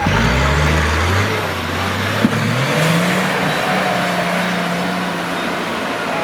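Off-road 4x4's engine revving hard under load: the pitch climbs at the start, climbs again about two and a half seconds in, then holds high. A single sharp knock comes just after two seconds in.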